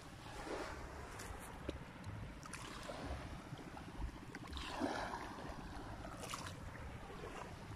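Shallow sea water washing in and out over sand at the shoreline, in several hissing swells, with wind rumbling on the microphone.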